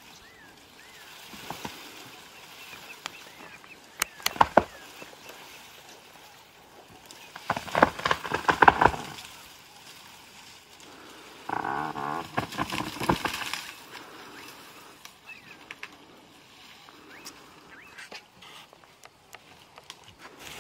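African elephant feeding in an acacia tree, branches cracking and snapping in a few sharp bursts, loudest a little before halfway. A steadier sound of about two seconds follows a little past halfway, and there are faint bird chirps near the start.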